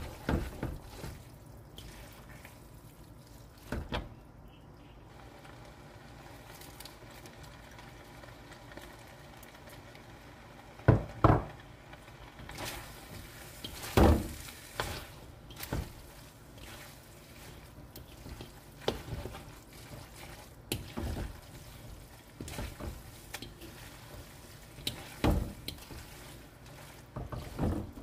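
Rice noodles stir-frying in a metal wok: a steady frying hiss, broken by irregular scrapes and clanks as a metal spatula tosses the noodles against the pan. The two loudest clanks come about halfway through.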